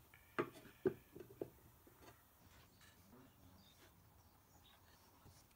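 A few light knocks and clicks in the first second and a half, then faint room noise.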